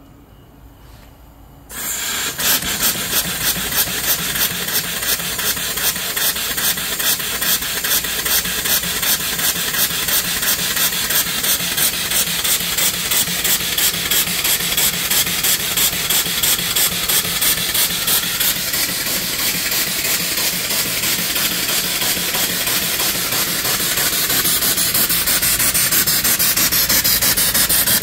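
Home-built mill steam engine (3-inch bore, 4-inch stroke) starting up on steam about two seconds in: a loud, steady rush of steam with a fast, even chuff. It gets a little louder near the end.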